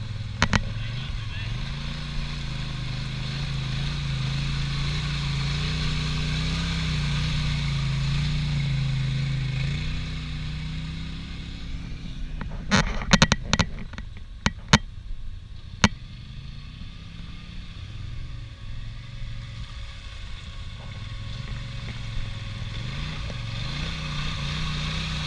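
Off-road ATV or side-by-side engine running under load in a mud hole, held at higher revs for several seconds then dropping back, with a cluster of sharp knocks about midway before the engine picks up again.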